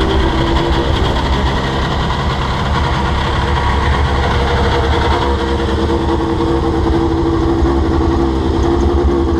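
Yamaha snowmobile engine idling steadily in the cold, its exhaust steaming.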